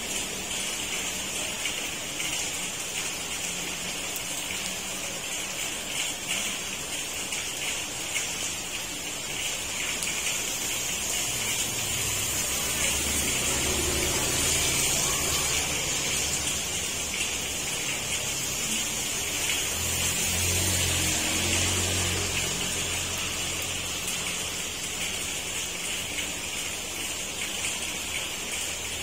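Heavy rain falling steadily, a dense even hiss. A low hum rises under it about twelve seconds in and again later.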